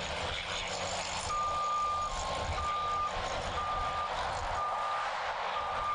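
Heavy equipment's reversing alarm beeping about once a second, each beep about half a second long, starting about a second in. A second, slightly lower-pitched beeper sounds now and then between the beeps. Steady machine noise runs underneath.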